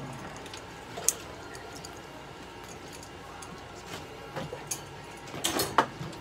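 Small clicks and handling noises over a steady room background: one sharp click about a second in, and a cluster of quick clicks and rustling near the end.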